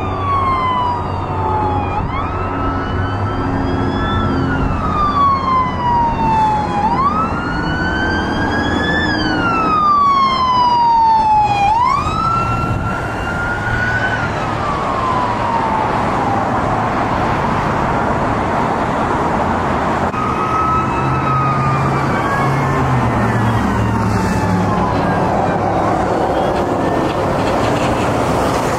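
Several emergency vehicle sirens wailing, rising and falling in pitch, loudest in the first half and fainter later, over engine and tyre noise from passing traffic. One of them is a mechanical Federal Q siren, which screams on the fire apparatus.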